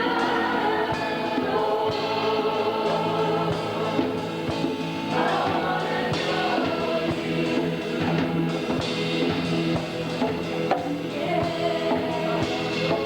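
Congregational worship music: a choir and congregation singing with a band of drum kit and guitar.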